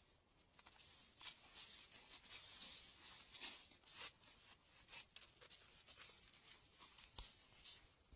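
Faint, uneven scratchy rustling with many small clicks.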